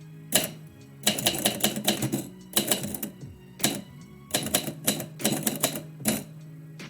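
Typewriter keys striking in quick bursts of typing with single strokes between, the last words of a poem being typed.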